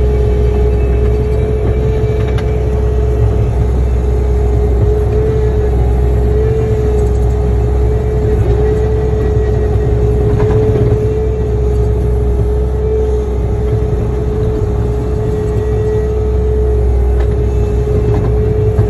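Bobcat skid-steer loader's engine running steadily, heard from the operator's seat, with a low rumble and a constant whine over it.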